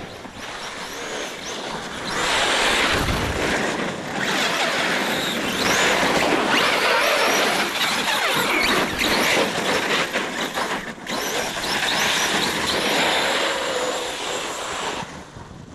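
Arrma Kraton RC monster truck driven hard in wet snow: a high motor whine that wavers up and down with the throttle over a heavy hiss. It comes in runs of a few seconds with short lulls about 4 s and 11 s in, and dies away near the end.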